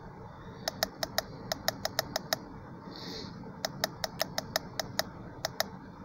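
Direction-pad button on a handheld iCarsoft diagnostic scan tool pressed over and over, scrolling down a menu list: a run of sharp clicks, about four a second, in two bursts with a short pause about halfway.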